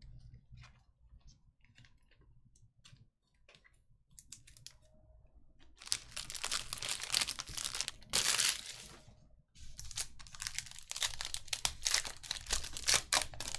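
Foil trading-card pack wrapper crinkling and tearing open in the hands: a few light rustles and clicks at first, then two long spells of loud crackling about halfway in and again near the end.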